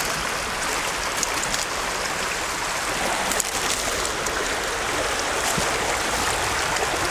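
A small mountain trout stream running over rocks: a steady rushing of water, with a few faint clicks.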